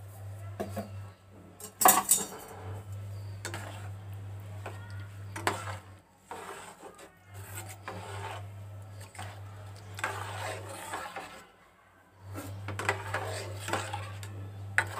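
Slotted metal spoon stirring soup in an aluminium kadhai, clinking and scraping against the pan's sides and bottom. The loudest knock comes about two seconds in.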